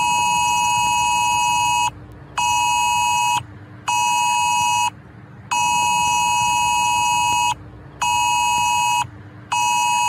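UK Emergency Alerts attention tone from a mobile phone: a loud alarm tone beeping in a long–short–short pattern, played twice, with half-second gaps between the beeps and a low steady hum beneath.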